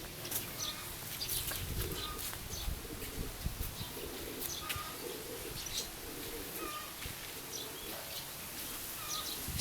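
A pigeon cooing in a run of soft, low repeated phrases, with small birds chirping now and then over a steady low rumble.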